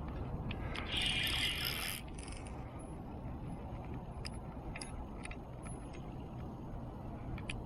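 Fishing reel ratcheting, with a dense buzzing burst for about a second near the start and a shorter one after it. Scattered sharp clicks and a steady low rumble run underneath.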